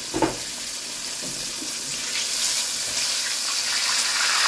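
Snapper pieces deep-frying in hot oil in a pot: a steady sizzle that grows louder from about two seconds in, as a fried piece is lifted out with tongs. A short knock about a fifth of a second in.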